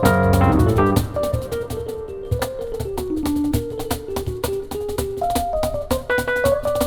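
Instrumental piano and percussion duo: the piano plays a single-note melodic line over sparse low notes while the percussion keeps up a quick, steady stream of light strikes. The piano is busier with full chords at the very start, then thins to the melody.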